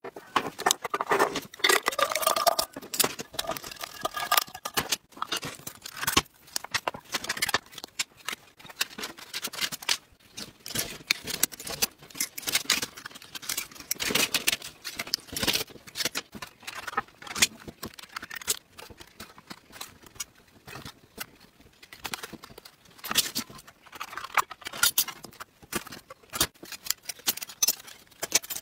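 Thin aluminium drink cans being handled, cut open and flattened, then the flattened can sheet cut with scissors. It makes an irregular run of metallic clicks, crinkles and snips.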